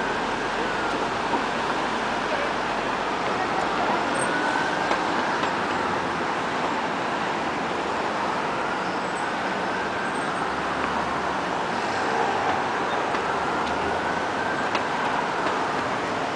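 Steady road traffic at a busy city intersection: cars driving through, a continuous wash of engine and tyre noise.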